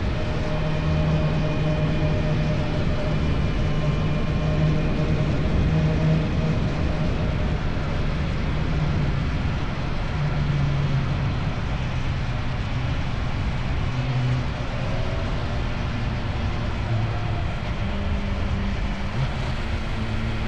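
Motorcycle engine with an Akrapovic exhaust running steadily under way over a constant rush of noise. About two-thirds of the way through the engine note dips, then climbs to a higher pitch near the end.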